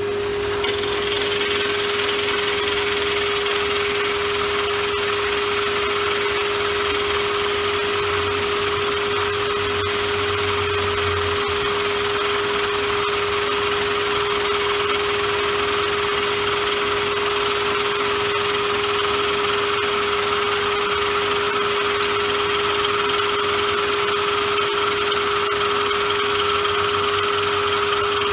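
Drill press running steadily at about 580 RPM with a constant hum, its 40 mm toy wheel cutter boring through hardwood, with the steady rush of a blower hose clearing the chips from the cut.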